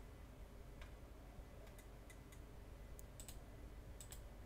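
Near silence with faint, scattered computer clicks, some in quick pairs, over a low steady room hum.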